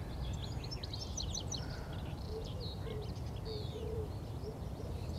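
Birdsong: small birds singing in quick high chirps, and from about two seconds in a pigeon cooing in a run of short low notes, over a steady low background rumble.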